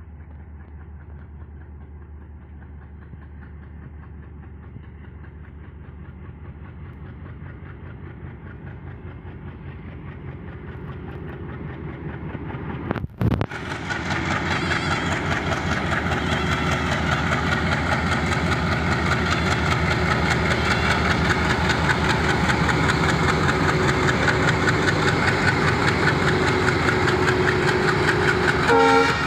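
Diesel locomotive hauling a freight train, drawing closer and growing steadily louder. From about halfway it runs loud with a rapid, even beat, after a brief sudden break in the sound.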